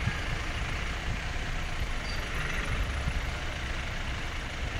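A motor vehicle's engine running, a steady low rumble.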